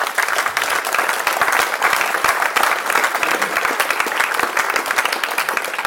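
Audience applauding: steady, dense clapping from many hands.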